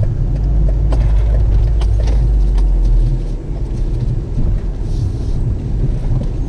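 Car driving slowly through a turn, heard from inside the cabin: a steady low engine and road rumble that eases after about three seconds, with a few light clicks.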